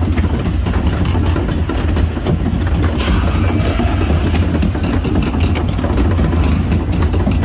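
A water ride's lift machinery running under the boat: a steady low drone with a rattling clatter.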